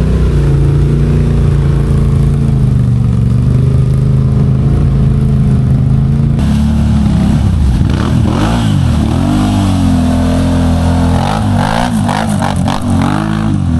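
ATV engine running at steady revs, then from about six seconds in the revs rise and fall over and over as the throttle is worked, with scattered knocks and clatter.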